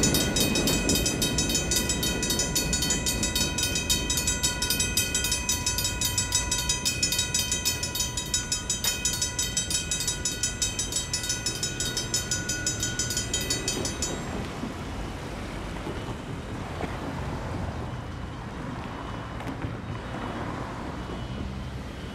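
Two Griswold mechanical railroad crossing bells ringing rapidly and steadily while the crossing is still active after the train clears, cutting off about two-thirds of the way through as the gates go up. A low rumble from the departing freight train fades in the first second, and only steady street noise remains after the bells stop.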